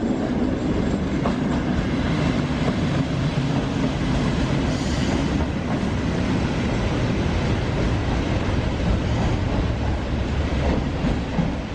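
Railway train noise at a station platform: a steady low engine drone and rumble with wheel-on-rail noise, running evenly throughout.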